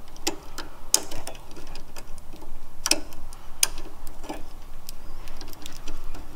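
Small plastic clicks and taps at irregular intervals, the sharpest about 1 s, 3 s and 3.6 s in, as a motor cable's connector is handled and pushed onto the header pins of an Arduino motor-control board.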